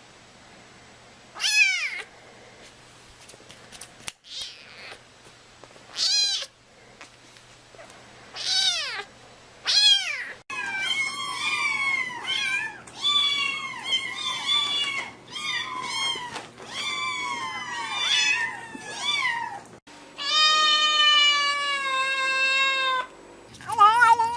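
Cats meowing: single meows every couple of seconds, then a stretch of many overlapping meows, then one long, drawn-out call near the end.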